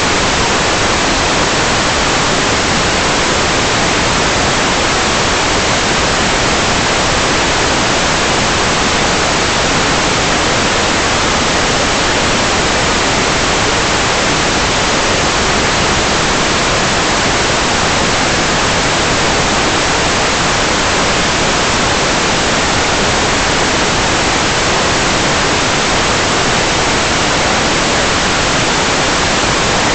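Loud, steady hiss of static with no change in it: the empty audio channel of a 5.8 GHz analog FPV video feed as recorded at the receiver.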